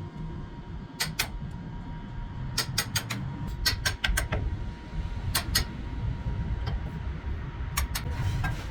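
Sharp knocks, often in quick pairs or small clusters, at irregular intervals over a steady low rumble.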